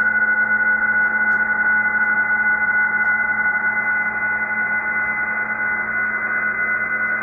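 Several PSK31 digital-mode signals received on 14070 kHz upper sideband by a Tecsun PL-990x shortwave radio, heard as steady tones over band hiss. The strongest is a high tone, and one of the lower tones stops about six seconds in.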